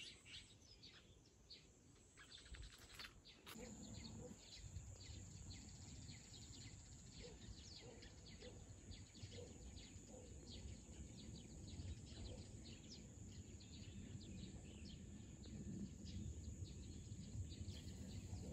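Faint countryside ambience: small birds chirping over and over above a low rumble. The rumble grows louder a few seconds in.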